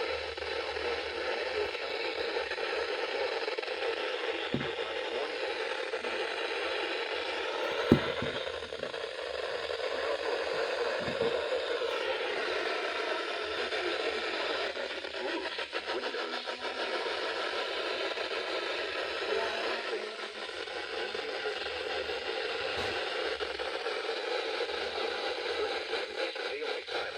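Steady hiss of static from a weather radio receiver, the warning broadcast lost beneath it, with one sharp click about eight seconds in.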